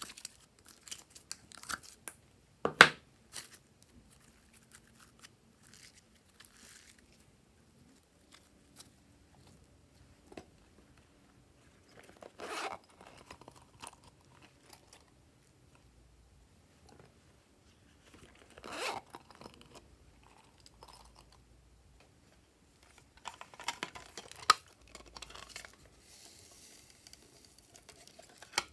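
Slime being squeezed and pulled out of plastic moulds and cases, giving bursts of wet crackling and squelching, with scattered small plastic clicks. A single sharp snap about three seconds in is the loudest sound.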